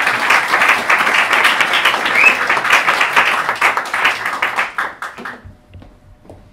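Audience applauding, a dense clatter of many hands that dies away about five seconds in.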